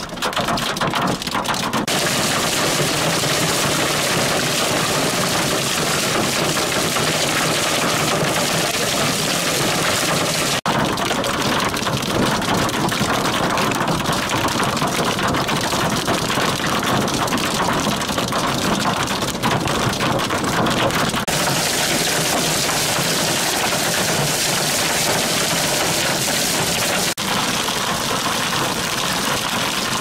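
Wind-driven large hail and rain pelting a vehicle in a severe thunderstorm. It is a dense, steady noise that shifts abruptly a few times.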